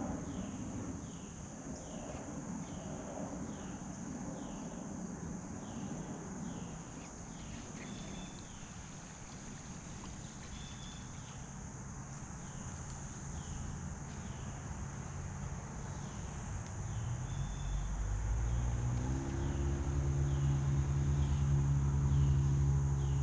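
A steady, high-pitched late-summer insect chorus, with a short chirp repeating a little more than once a second. From about three quarters of the way in, an engine's low, steady hum rises and becomes the loudest sound.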